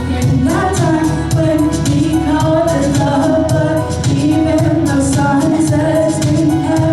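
A woman singing a melody over a backing track with a steady beat.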